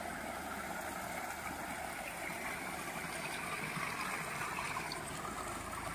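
Water gushing from an irrigation pipe outlet into a concrete tank, a steady splashing rush.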